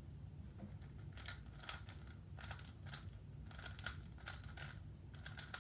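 Weilong WR M speedcube being turned very fast during a sub-six-second solve: quick runs of light plastic clicks and clacks.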